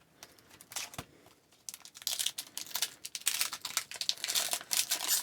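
Hockey card pack wrapper being torn open and crinkled, starting about two seconds in after a single click.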